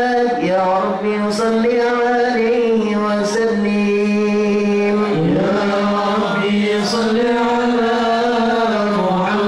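Male voices chanting a devotional prayer chant in long held notes that shift pitch a few times, with a clear rise about five seconds in.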